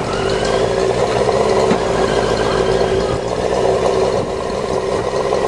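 Dune buggy's Yamaha 650 motorcycle engine running at a steady speed, with no revving.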